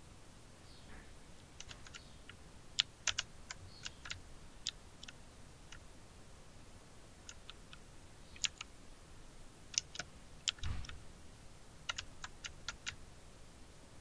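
Typing on a computer keyboard: quick keystroke clicks in several short bursts with pauses between them, and one heavier key thud about ten and a half seconds in.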